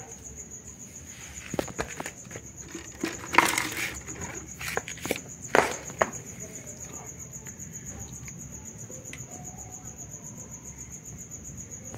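Scattered clicks and taps on a plastic PET-bottle trap holding a young rat, loudest about three and a half and five and a half seconds in, then settling. A steady high cricket chirring runs underneath.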